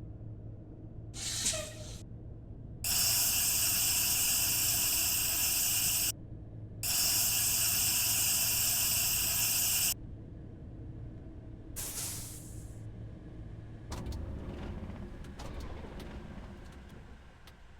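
Two loud, sharp-edged hisses of air or spray, each about three seconds long, over a steady low vehicle rumble, with shorter hisses before and after and a few clicks near the end.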